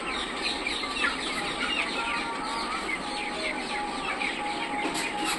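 A large flock of three-week-old broiler chickens peeping and chirping all at once, a dense, steady chatter of many short overlapping calls.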